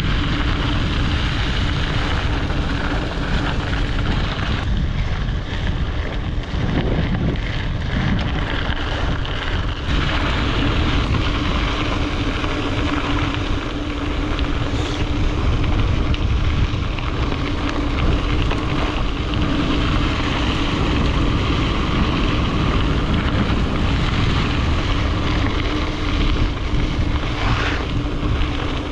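Wind rushing over the microphone of a camera riding on a fast-moving bicycle, a steady deep roar with a faint constant hum under it.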